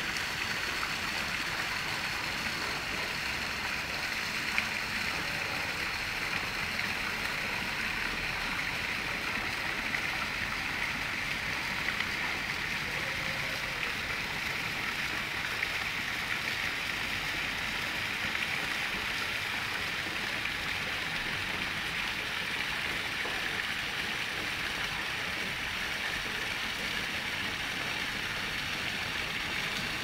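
A chorus of cicadas: a steady, high-pitched hissing drone that holds on without a break.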